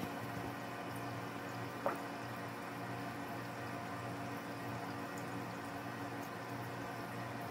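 An air bubble from an aquarium air bubbler pops at the water surface of a loach tank, one sharp plink about two seconds in, over a steady low hum.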